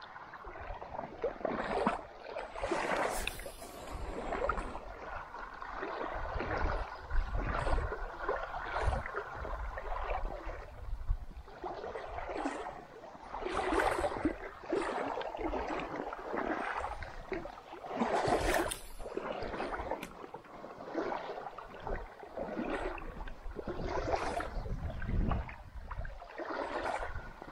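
Legs wading through shallow creek water: swishing and sloshing surges, one with each stride, about every one to two seconds.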